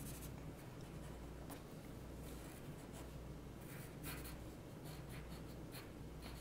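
Pencil lead scratching on paper in irregular short sketching strokes, faint, over a low steady hum.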